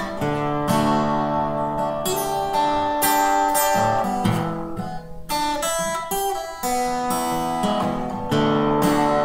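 Acoustic guitar being strummed, its chords ringing and changing every second or so, thinning out briefly about halfway through.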